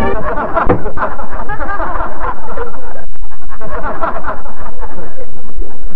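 A crowd of onlookers laughing and chattering, with no single clear voice and a brief lull about halfway, heard on a harsh, distorted 1930s 9.5mm optical film soundtrack.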